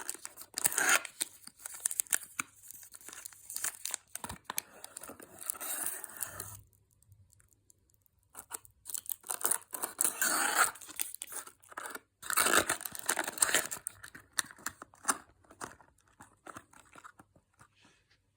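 Candy packaging being torn open and crinkled close to the microphone, in irregular bursts with a short pause about a third of the way through.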